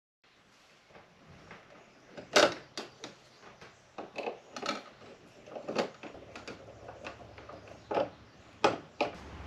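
Irregular sharp knocks and clunks of wooden cabinet parts, a drawer and doors, being handled and fitted. The loudest knock comes about two and a half seconds in.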